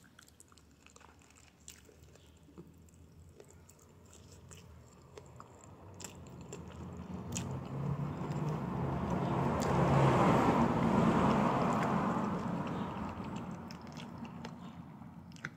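Soft clicks of biting and chewing on a stewed chicken foot, then a motor vehicle passing in the street: its noise swells over several seconds, is loudest just past the middle, and fades away near the end.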